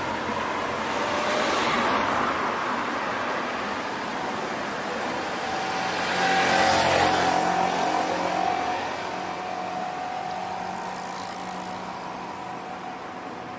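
Road traffic: a car drives past about two seconds in, then a motorbike passes between about six and eight seconds in, its engine tone loudest as it goes by. The traffic sound then fades away.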